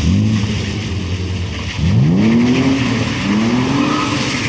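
BMW E46 engine revving hard while drifting: the revs climb and hold high three times, dropping briefly between each pull.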